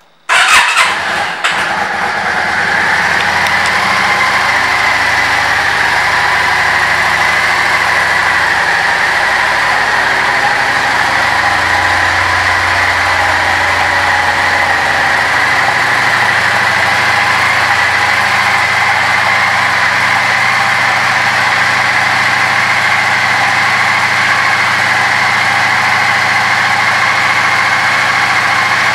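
2004 Yamaha V Star 650 Classic's air-cooled V-twin starting: it catches with a short ragged burst in the first second and a half, then settles into a steady idle.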